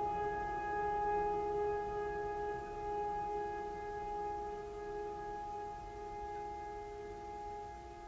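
Sustained musical drone of several steady pitches held together, slowly fading away.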